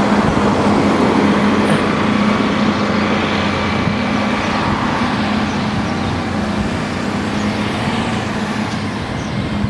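Street traffic: a motor vehicle engine running steadily close by, over a continuous haze of road noise, the whole slowly getting quieter.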